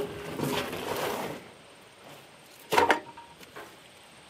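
A red plastic outboard fuel tank handled in a steel pickup bed: a second or so of scraping and shuffling, then one sharp knock with a brief metallic ring about three seconds in.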